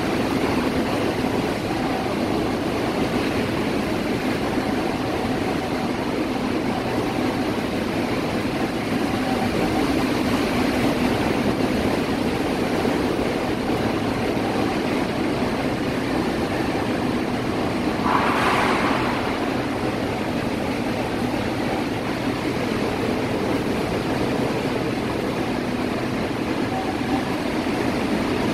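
Steady rush of heavy hurricane rain and wind, with a brief louder hiss about two-thirds of the way through.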